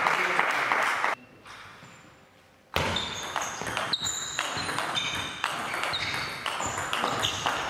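Table tennis rally: the ball clicking off rackets and table in quick, irregular succession, each hit with a short high ping. It starts about three seconds in, after a brief noisy rush and a near-quiet pause.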